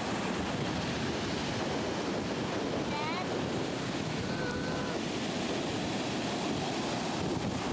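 Rough storm surf, stirred up by an approaching hurricane, breaking on the beach in a continuous rush of waves, with wind buffeting the microphone.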